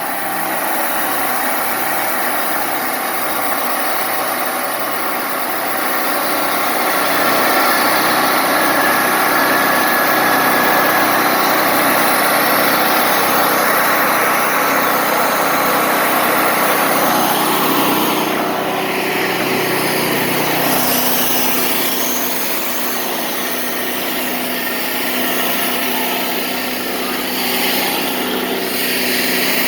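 Wood-Mizer LT40 Wide portable band sawmill running steadily. Its tone shifts about two-thirds of the way through.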